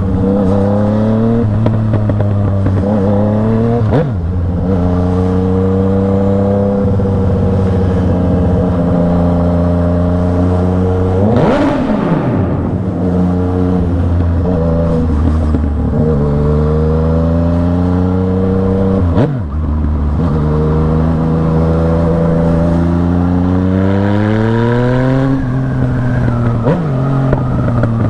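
Yamaha MT-09's three-cylinder engine pulling hard through the gears, its pitch rising in long sweeps and dropping back at each upshift, loud. About twelve seconds in, a brief falling rush as another vehicle goes past.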